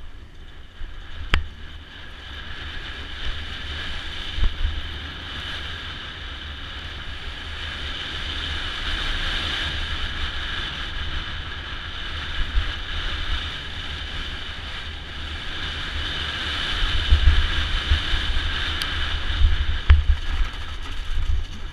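Wind rushing over a point-of-view camera's microphone, with rumble, thumps and rattle from a bike riding a rough dirt trail at speed. It builds steadily and is loudest, with the hardest knocks, in the last few seconds.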